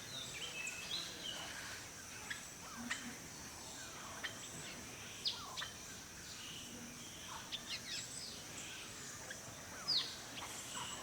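Several wild birds calling and chirping in a forest, short sharp notes and quick falling whistles scattered irregularly, over a steady high hiss of forest background. One louder falling call comes near the end.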